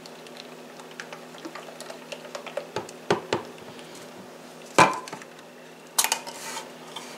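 Kitchen utensils and containers being handled: scattered light clicks and taps, a sharp knock about two-thirds of the way through, and a brief clatter near the end.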